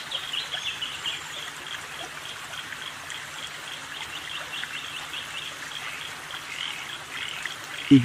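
Bird calling in bursts of rapid, short, high chattering notes over a steady background hiss.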